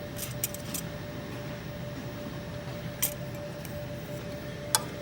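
Sharp metallic clicks and clinks of tools and small parts being handled during work on an embroidery machine head: a quick cluster of several in the first second, then single clicks about three seconds in and near the end. A steady hum runs underneath.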